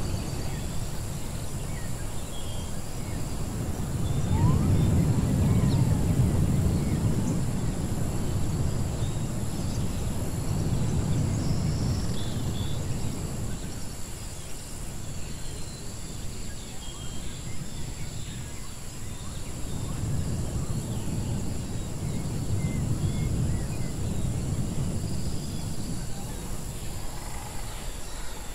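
Edited ruins ambience: a low rumble that swells and eases twice, with faint scattered bird chirps over it.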